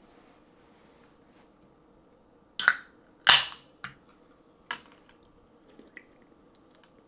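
Aluminium soda can being cracked open: two sharp cracks about two and a half and three and a quarter seconds in, the second and loudest trailing off in a short hiss of escaping fizz. Two fainter clicks of the tab follow.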